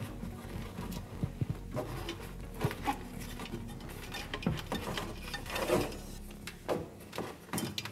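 Irregular light clicks, taps and rubbing of a cable and its small plug being fed by hand through a drilled hole in a wooden cabinet back panel.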